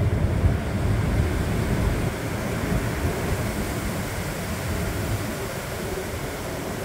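Strong gusty wind from Hurricane Ian rushing through the leaves of large trees, with the wind buffeting the microphone as a low rumble. The gusts are strongest in the first two seconds and ease a little after.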